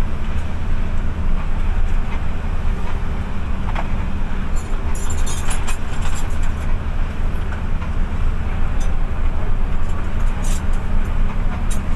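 Intercity bus's diesel engine running with a steady low drone, with short rattles now and then, most around the middle and near the end.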